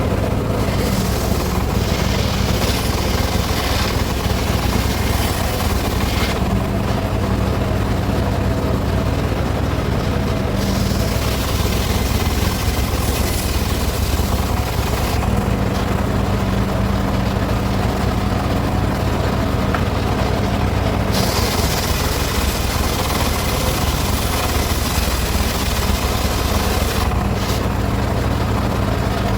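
Circular saw rig slicing teak, its machinery running steadily with a low hum, and a higher hiss that comes and goes in long stretches as the blade works through the wood.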